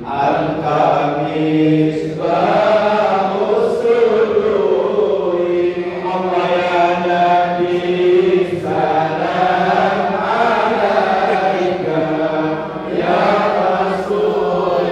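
A congregation of men chanting dikir, Islamic devotional praise, together in unison, sustained and melodic without a break.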